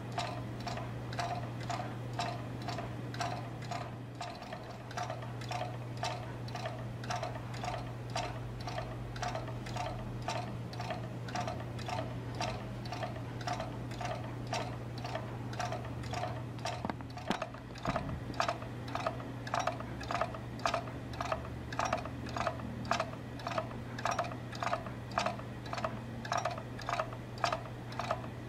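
Homemade magnet motor running, its small pivoting magnet knocking against its rubber stops in a steady rhythm of about two knocks a second as the magnet wheel turns. The knocks grow louder in the second half, over a steady low hum.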